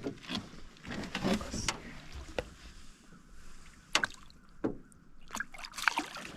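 Scattered knocks and bumps of handling in a small fishing boat, several short hits spaced unevenly with quieter stretches between.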